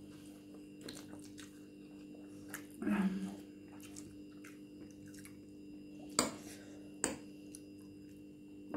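Quiet eating at a table: chewing and small clicks of metal forks against ceramic plates, over a faint steady hum. A short vocal sound comes about three seconds in, and two sharper clicks follow past the middle.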